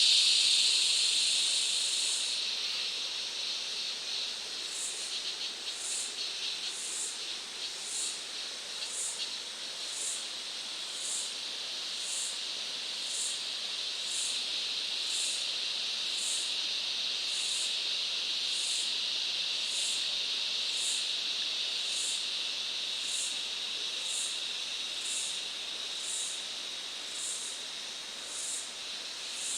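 Rainforest insect chorus: a steady, high, hissing drone, joined about two seconds in by a short, very high chirp that repeats about once a second.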